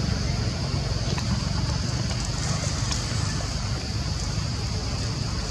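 Steady outdoor background noise: a low rumble with a steady high hiss over it, and a few faint ticks.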